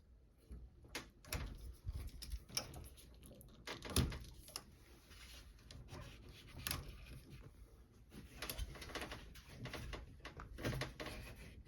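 Scattered clicks, knocks and rattles of hands working at the washing machine's cold water inlet valve, its hose clamps and its connectors, with the loudest knocks about four seconds in and near seven seconds in.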